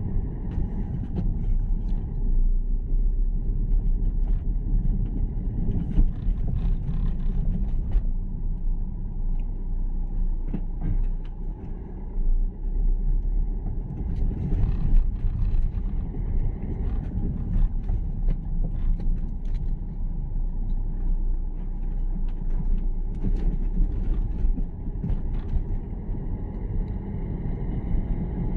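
A car driving along a road: a steady low rumble of engine and tyres, with scattered clicks and knocks throughout.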